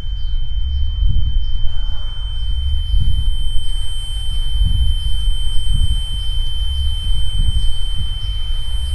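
Film sound design: a steady high-pitched ringing tone, joined about two seconds in by two fainter, even higher tones, over a deep rumble that throbs in irregular pulses.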